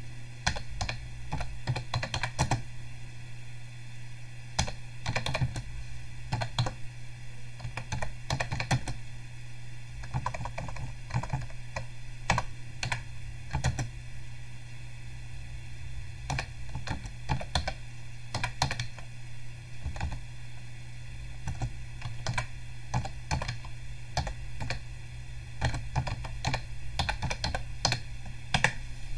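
Typing on a computer keyboard: irregular runs of keystroke clicks with short pauses between them, over a low steady hum.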